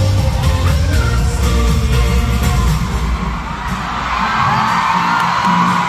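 Live pop music over an arena sound system with a strong bass beat, mixed with a crowd of fans screaming. About three and a half seconds in the bass drops away and high-pitched crowd screaming takes over.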